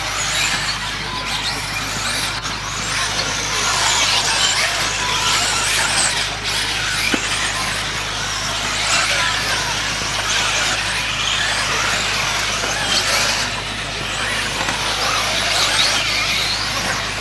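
Several 1/10-scale electric 4WD off-road RC buggies racing together, the high whine of their electric motors rising and falling in pitch, overlapping.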